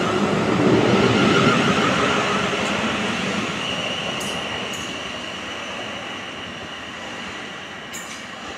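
South Western Railway Class 444 Siemens Desiro electric multiple unit departing and accelerating away: wheel-on-rail running noise with a traction whine, fading steadily as the train recedes. A thin high whine holds steady from about three and a half seconds in.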